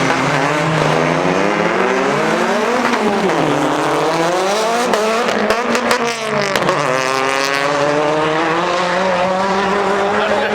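A car engine at full throttle, its note climbing and dropping back twice as it shifts up through the gears.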